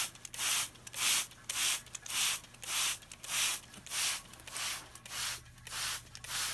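Hand trigger spray bottle misting water: a steady run of short hissing squirts, a little under two a second.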